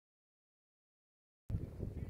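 Dead silence, then about one and a half seconds in, a sudden low, gusty rumble of wind buffeting the microphone.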